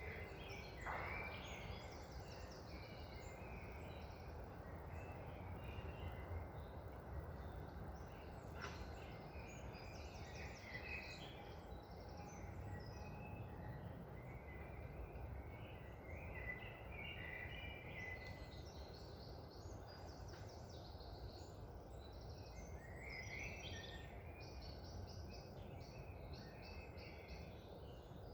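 Songbirds chirping and twittering, many short calls overlapping throughout, over a steady low rush of wind.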